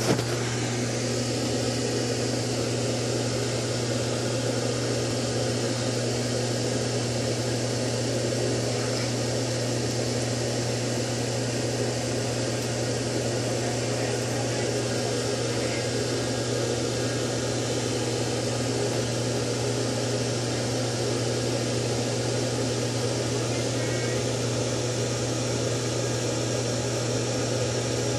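Steady mechanical hum: a constant low drone with an even hiss over it.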